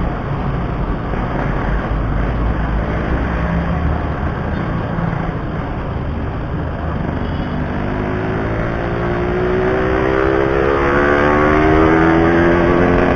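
Yamaha RX-King 135cc single-cylinder two-stroke motorcycle engine running at low revs with road and wind noise. From about eight seconds in it revs up steadily as the bike accelerates.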